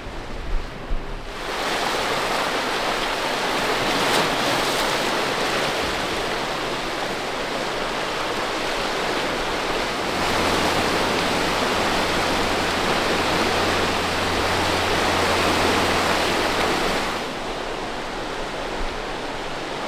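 Steady hiss of sea surf washing against rocks, starting abruptly about a second in and dropping away a few seconds before the end. From about halfway, a low steady drone of a small rigid inflatable boat's outboard motor passing runs under it and stops with it.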